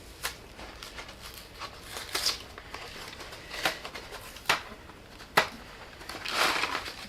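Cardboard Kraft macaroni and cheese box being opened by hand: scattered sharp clicks and crinkles of the paperboard, with a longer crinkling rustle about six seconds in.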